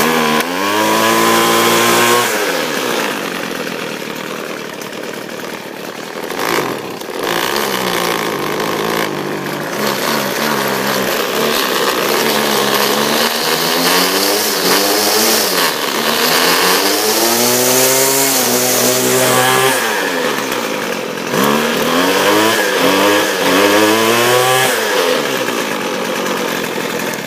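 Small gas engine running after a warm pull-start, revved up and back down several times between spells at a lower speed, running smoothly.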